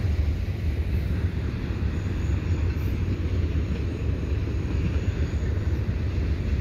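Freight train passing at a distance: a steady low rumble with no breaks.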